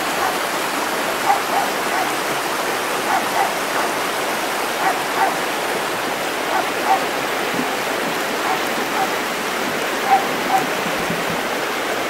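Steady rush of a stream's flowing water. Short sounds in pairs, about every two seconds, rise above it.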